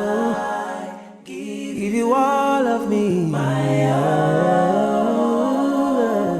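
A small group of voices singing a slow worship song a cappella in close harmony. It briefly drops away about a second in, then comes back with long held, swelling notes.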